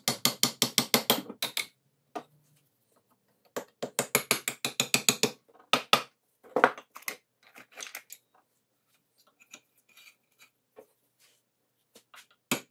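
Ratchet spanner clicking in quick runs of about eight clicks a second, in several bursts with pauses between, as the bolts holding the hoist's back cover are undone.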